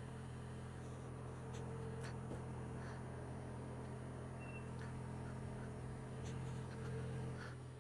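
A steady low engine-like hum with faint scattered clicks and ticks over it, fading out at the very end.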